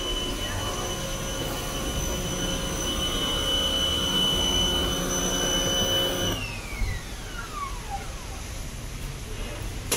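A motor's high whine and rumble running steadily, then shutting off about six seconds in, the whine falling in pitch as it spins down.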